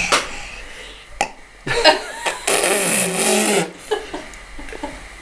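A young girl letting out one long, deliberate belch lasting about two seconds, its pitch sinking near the end.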